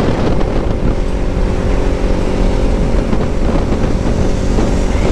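Kawasaki Ninja 300's parallel-twin engine running at steady high revs at highway speed, with wind rushing over the microphone.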